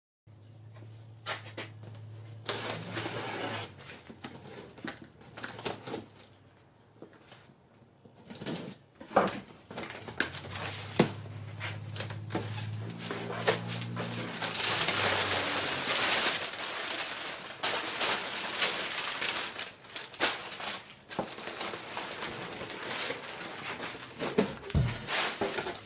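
A cardboard shipping box being unpacked by hand: crumpled brown kraft packing paper rustling and crinkling, with the box flaps and contents knocking. The crinkling is loudest about halfway through.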